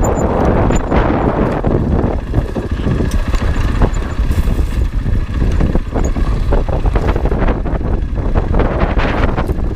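Heavy wind buffeting the microphone while a 2020 Husqvarna FE 501 enduro dirt bike is ridden along a trail, with a low rumble and frequent short knocks and rattles underneath.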